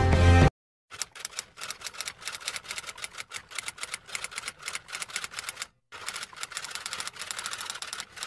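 Music cuts off abruptly about half a second in. A typewriter sound effect follows: rapid key clacks in quick runs, with a brief pause a little before six seconds in.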